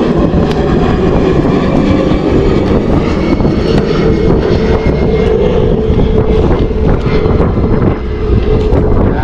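Small boat's outboard motor running steadily, with wind noise on the microphone.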